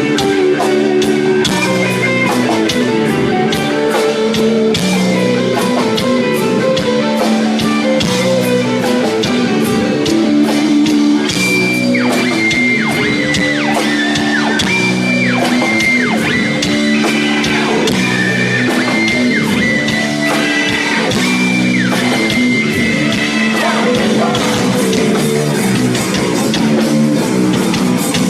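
Live rock band playing loud with electric guitar, bass and drums, no vocals. About midway a high lead guitar line comes in with held notes that keep sliding down in pitch.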